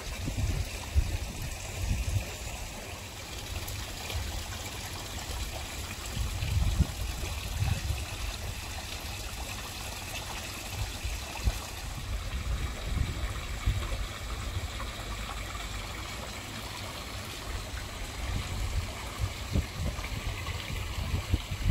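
Small rock waterfall trickling and splashing steadily into a koi pond, with irregular low rumbles underneath.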